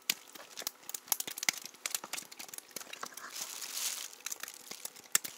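Handling noise from the camera being moved and clothing rustling: dense crinkly rustling with many sharp clicks and crackles, and a smoother rustle about three and a half seconds in.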